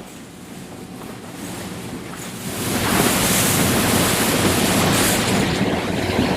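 Motorboat under way: a steady low engine hum under a soft wash of water. About two and a half seconds in, a loud rush of wind and spray on the microphone takes over.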